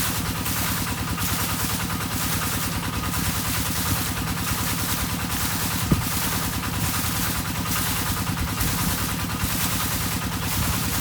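Engine-driven irrigation water pump running steadily with a fast low chug, under a chorus of frogs calling in a regular pulsing beat. A single sharp click about six seconds in.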